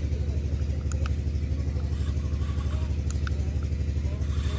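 Tractor engine running steadily, a fast even low throb with no change in speed.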